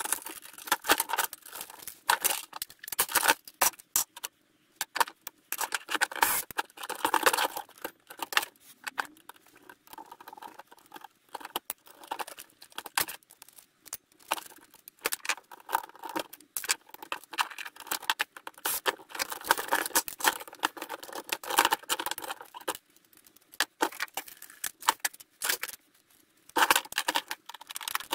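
Irregular clicking, scraping and rattling of the metal and plastic parts of a VHS player being taken apart by hand with a screwdriver and pliers, with a couple of short pauses.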